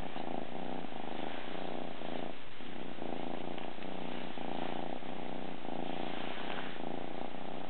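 Maine Coon kitten purring steadily while its head is stroked.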